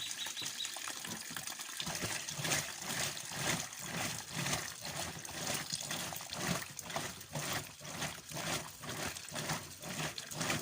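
Washing machine filling with water: water running into the tub, with a regular swishing about twice a second.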